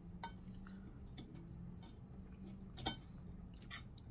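Spoon and fork clicking lightly against a plate while eating, with one sharper click about three seconds in, over a faint steady low hum.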